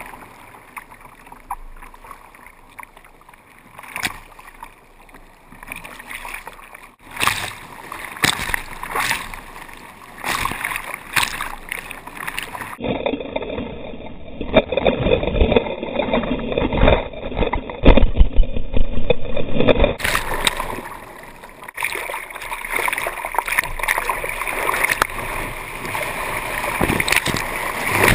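Surf breaking and water splashing and rushing over a surf kayak's deck as it rides waves, with frequent sudden splashes. For several seconds in the middle the sound turns muffled.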